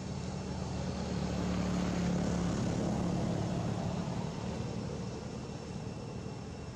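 A distant engine's low drone, swelling to its loudest about two seconds in and then slowly fading as it passes by.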